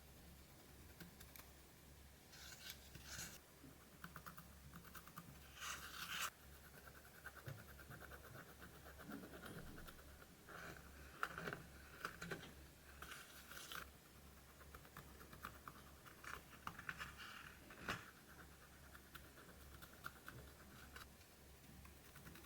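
Pressed eyeshadow being scratched out of a palette pan: faint, repeated bursts of quick fine scratching strokes, with one sharp tap late on.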